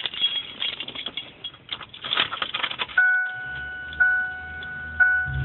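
Car keys rattling and clicking as they are handled. About three seconds in, the car's warning chime starts dinging about once a second, with a low hum under it. Right at the end a louder, steady running sound begins.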